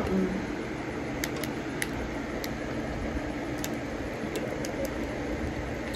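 Steady background hum with faint, sharp little clicks scattered through it, from gloved hands handling and eating shellfish.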